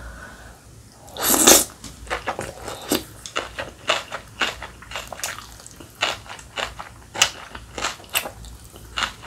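A woman slurps up a big mouthful of spicy cold noodles (bibim naengmyeon), with one loud slurp about a second in. It is followed by wet chewing and smaller slurps, sharp mouth clicks coming about two to three times a second.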